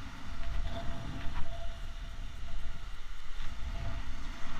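Wind buffeting the camera microphone in a steady, uneven low rumble, over small waves washing up on a sandy shore.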